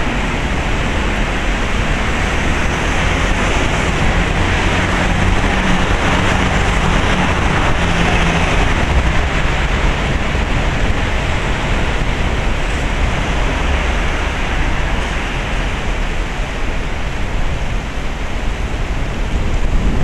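Heavy typhoon rain pouring down in a steady hiss.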